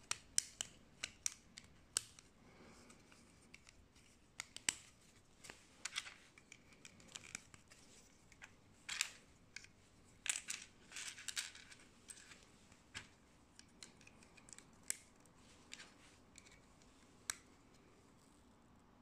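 Small plastic interlocking building bricks clicking as they are pressed together and handled, in irregular sharp clicks with a busier stretch of clicks and clatter about halfway through as loose pieces are picked up.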